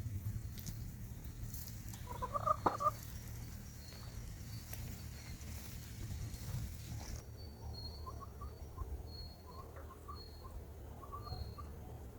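A chicken gives a short burst of calls about two seconds in, over a steady low rumble. Later come faint soft chirps and a high, evenly repeated call.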